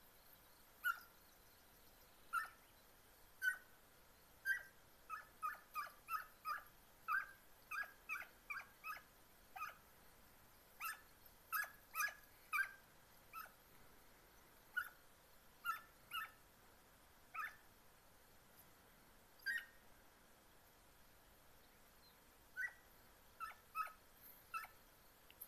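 Segugio italiano hound puppies giving tongue while trailing scent: faint, short, high yelps in quick irregular runs, densest in the middle, then coming more sparsely.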